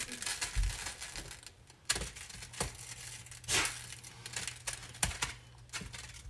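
A plastic meat-chopper tool scraping and tapping against a nonstick skillet as it breaks up raw ground sausage: irregular scrapes and clicks.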